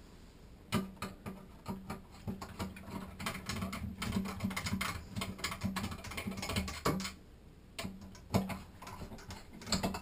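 Hand screwdriver turning out the long Phillips screws that hold the shower valve's brass trim plate: a steady run of small clicks and scrapes of metal on metal, with a few louder knocks.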